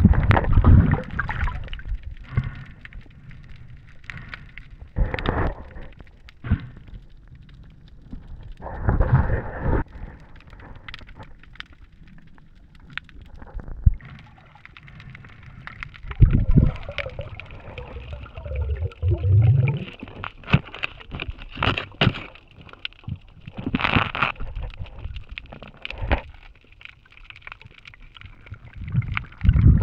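Underwater sound picked up by a diver's camera: water gurgling and rushing past the housing in irregular surges, with scattered knocks and clicks.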